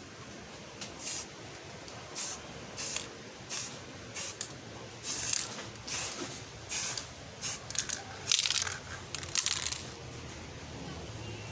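Aerosol spray can of clear coat spraying in about a dozen short hissing bursts, each under a second, starting and stopping irregularly; the loudest come a little past the middle.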